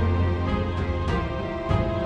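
Background music: held chords with a sharp drum-like hit now and then.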